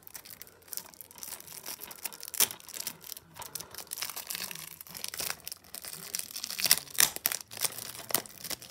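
Plastic shrink-wrap crinkling and tearing as it is peeled off a DVD case, an irregular run of sharp crackles with a few louder snaps.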